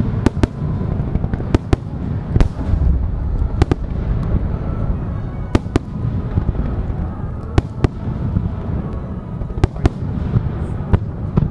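Fireworks display: aerial shells and low-level star mines and comets bursting with sharp bangs, often two in quick succession, about every two seconds over a continuous low rumble of launches and booms.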